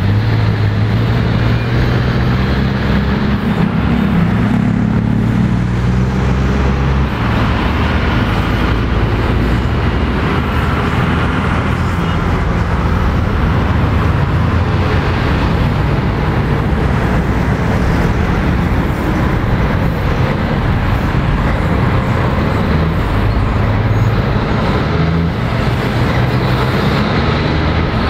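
Heavy diesel lorries and cars passing close by in slow, steady road traffic. Their engines run low and continuously, and the engine tones change now and then as one truck after another goes past.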